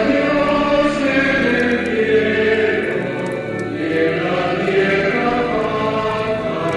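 Choir singing a slow chant, with several voices holding long, sustained notes.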